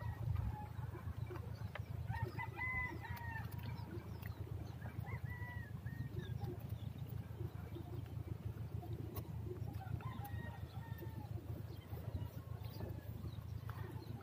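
A rooster crows faintly about two seconds in, with a few shorter calls later, over a low rumble of wind on the microphone and a few faint clicks of handling.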